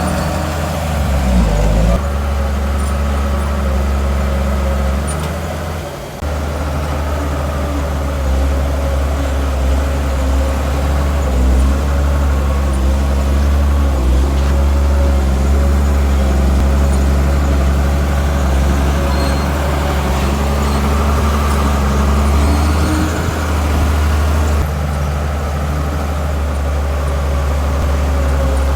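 Heavy diesel engine of earthmoving machinery running steadily at a low, even pitch. The sound changes abruptly a few times, about 2, 6 and 25 seconds in.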